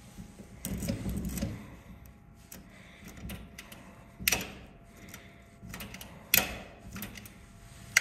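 A key being fumbled in a door-knob lock: the key and its tag rattle and scrape in the cylinder, with two sharp metallic clicks about four and six seconds in. The lock is not giving way to the key.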